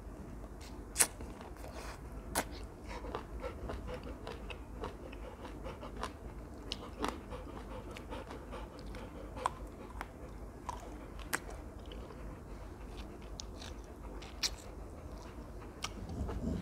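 A person chewing a fresh plum, with irregular mouth clicks throughout and a couple of sharper ones in the first few seconds.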